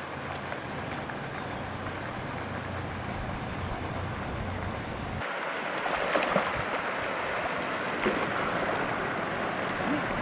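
Steady outdoor hiss with a low hum, then from about five seconds in a brighter rush of water with sharp irregular splashes: a hooked trout thrashing at the pond surface as it is reeled in, over the steady splashing of a pond aerator fountain.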